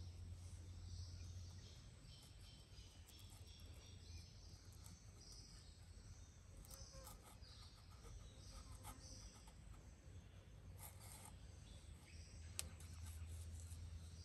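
Near silence: faint outdoor ambience with soft high chirping, a few faint clicks, and one sharper click near the end.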